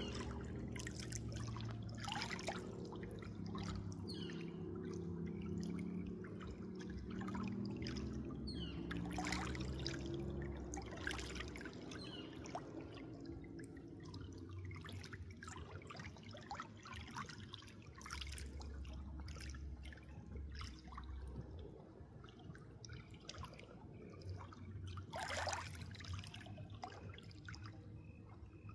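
Water trickling and splashing irregularly, over a steady low rumble.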